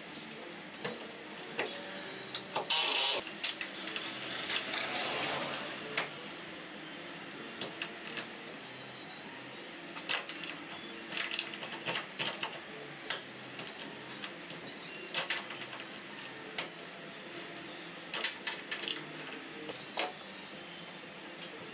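Scattered clicks, taps and scrapes of hand-tool work on the door hardware of a 1977 VW Bay Window bus being taken apart. A louder, noisy clatter comes about three seconds in.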